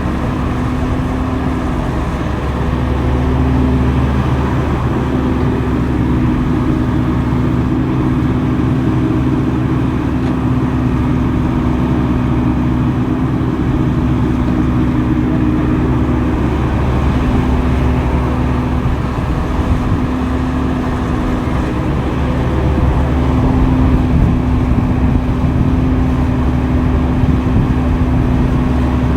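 Diesel engine of heavy earthmoving machinery running steadily, a constant low hum.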